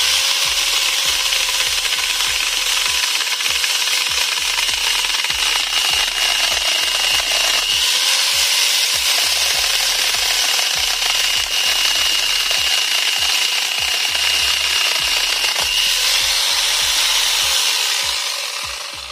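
Angle grinder fitted with a chainsaw adapter and 11.5-inch chainsaw bar, running steadily with its motor whine and chain noise, then winding down near the end.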